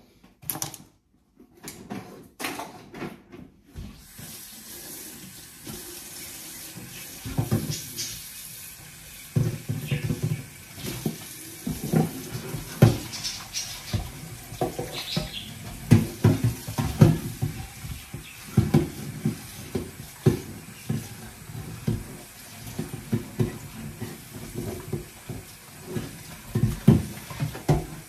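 Kitchen tap running into a stainless steel sink while things are washed by hand, with frequent knocks and clatter against the sink. The water starts about four seconds in, after a few handling knocks.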